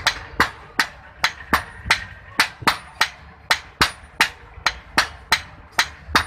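Hand hammers striking a red-hot iron knife blade on an anvil in a steady rhythm of about three blows a second, two smiths hitting in turn while forging the blade. Some blows leave a faint high ring.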